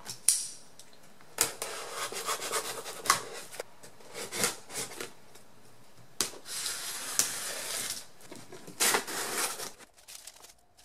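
A cardboard shipping box being torn open by hand: a string of sharp knocks and scrapes against the cardboard, a longer tearing stretch in the middle, then the flaps pulled open and packing paper rustled.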